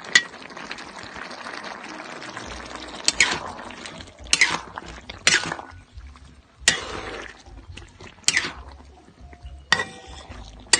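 A metal utensil clinking against a cooking pan about seven times, roughly every second or so, while the octopus adobo is stirred in its sauce, with a wet, liquid sound in between.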